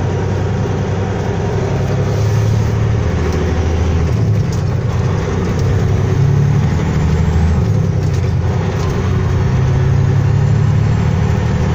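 Semi-truck's diesel engine droning inside the cab as it pulls a loaded trailer along the road, its pitch shifting a few times as the truck picks up speed, with road noise underneath.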